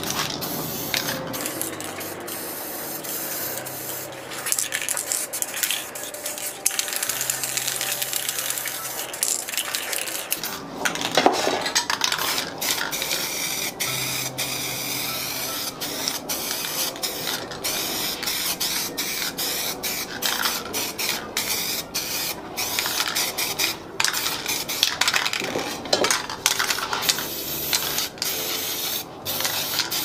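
Aerosol spray paint cans hissing in repeated bursts with short gaps between them, mixed with metallic clinks and clatter of the cans being handled.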